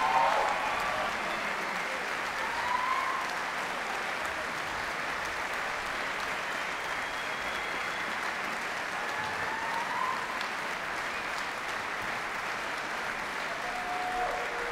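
Concert hall audience applauding steadily, with a few brief rising calls from the crowd over the clapping.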